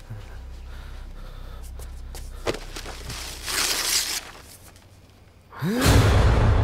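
Horror-film sound design: a low rumbling drone with a few sharp clicks, a breathy swell about three to four seconds in, then a loud impact near the end with a swooping pitch sweep and a deep, sustained boom.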